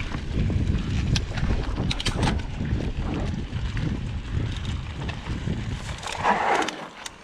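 Wind buffeting the microphone and a mountain bike rumbling and rattling over a dirt trail, with scattered clicks. About six seconds in there is a brief louder scuff, then the rumble dies down as the bike slows.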